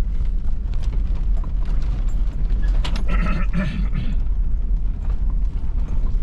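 Vehicle engine running with a steady low rumble as it drives over rough ground, with rattles and clicks. A short squeaky sound about three seconds in.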